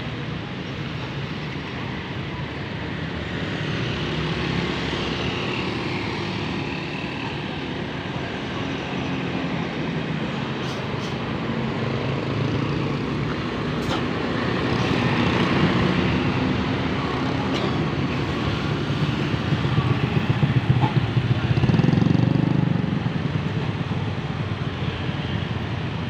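Road traffic passing close on a bend: cars, motorcycles and a coach bus, their engines and tyres running continuously. It swells several times as vehicles go by and is loudest about twenty to twenty-three seconds in, with a low engine rumble.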